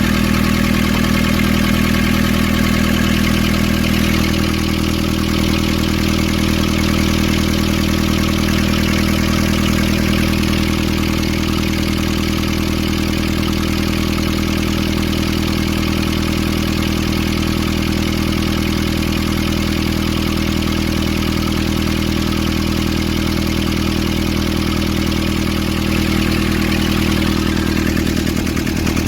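Nissan ZD30 four-cylinder diesel engine idling steadily, with a slight drop in level about four seconds in.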